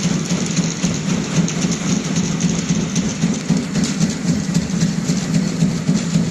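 Aluminium slug production machinery running continuously, a steady low hum with a fast, uneven clattering rattle over it.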